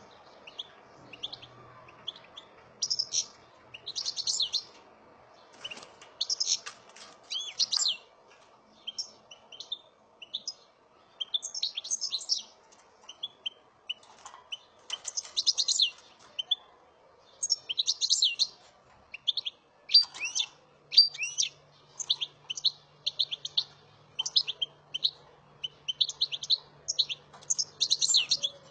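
Caged European goldfinch singing: phrases of quick, high twitters and trills, repeated with short pauses.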